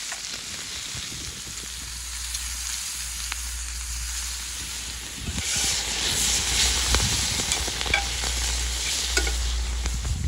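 Food sizzling as it fries in a pan, with a steady hiss. About halfway through the sizzling grows louder, and the clicks and scrapes of stirring join it.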